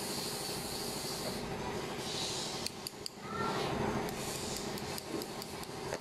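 Electric hair clipper running with a steady buzz as it is passed over a nearly shaved scalp, with a scraping hiss in the first second and a half and again briefly later as the blades cut the last stubble.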